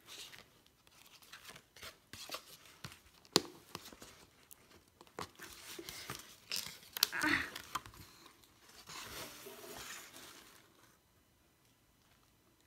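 Printed paper cards and a brochure being handled and shuffled in a cardboard gift box: intermittent rustling and light taps, with a sharper click about three seconds in. The rustling dies away near the end.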